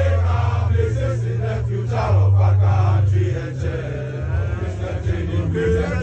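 A crowd of voices chanting or singing together over music with deep bass notes that shift every second or two.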